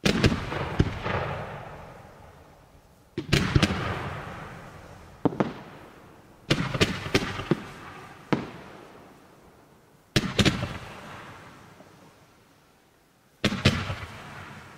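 Fireworks display going off in about seven volleys of sharp bangs, some volleys with several quick bangs together, each dying away over a second or two.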